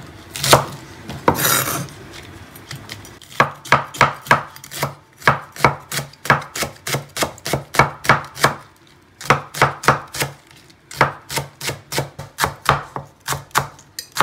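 Wide-bladed kitchen knife chopping a leek on a wooden cutting board: a quick, even run of knocks, about three or four a second, with a couple of short pauses. The chopping starts about three seconds in, after some soft handling rustle.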